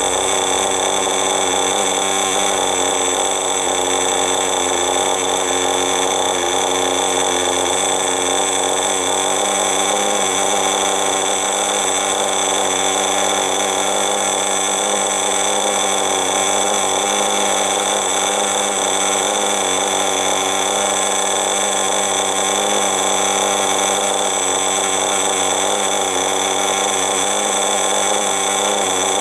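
Veco .21 two-stroke glow-fuel engine of a radio-controlled buggy idling steadily, its pitch wavering slightly.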